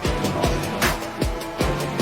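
Background music with a steady beat of kick drum and snare at a quick tempo.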